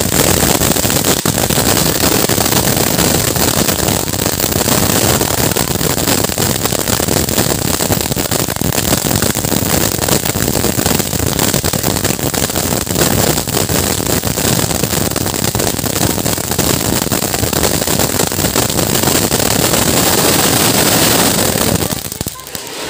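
Anar (cone fountain firework) spraying sparks: a loud, steady hissing rush with fine crackling, dying down near the end.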